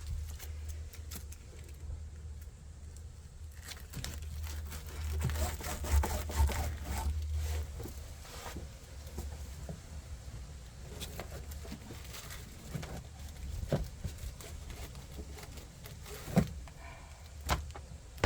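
Paper rustling and crinkling as it is handled and cut for a template, with scattered clicks and knocks, two sharper knocks near the end, over a steady low hum.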